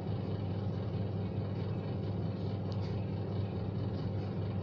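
Steady low background hum and rumble, unchanged throughout, with a couple of faint small ticks near the middle.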